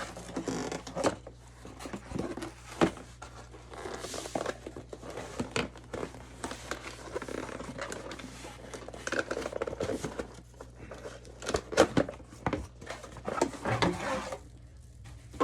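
Cardboard box and packaging being handled while vacuum parts are unpacked: irregular rustling, scraping and light knocks, with a sharper double knock a few seconds before the end.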